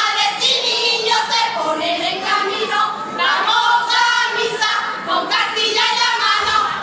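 Women's carnival group singing a song together in chorus.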